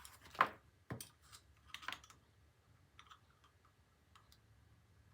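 Light clicks and taps of small metal parts and a measuring tool being handled while gears are measured: several in the first two seconds, then a few faint scattered ticks.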